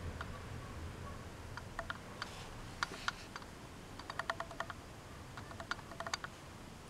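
Faint handling noise: scattered small clicks, several in quick succession at about four seconds in, with a light paper rustle, from a handheld camera and fingers moving over the pages of an old magazine.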